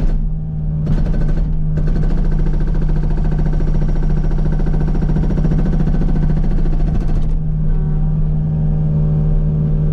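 Kubota U55 mini excavator's diesel engine running steadily. From about two seconds in to about seven seconds in, an Agrotk 680 hydraulic breaker hammer pounds rock with rapid, evenly spaced blows, and a short burst of the same comes about a second in.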